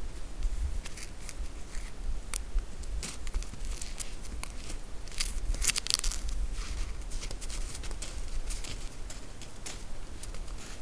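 White-tailed deer stepping and nosing in the snow: irregular crunches and crackles, thickest about five to six seconds in.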